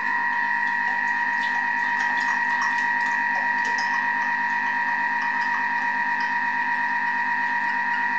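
Thermomix motor running steadily at speed 3 with the butterfly whisk fitted, whipping instant coffee, sugar and hot water into dalgona foam. It makes a constant, even hum with a high tone over a low one.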